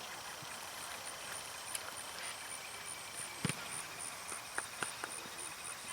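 Soccer ball being kicked: a few sharp thuds, the loudest about three and a half seconds in and two more close together about a second later, over steady open-field background noise.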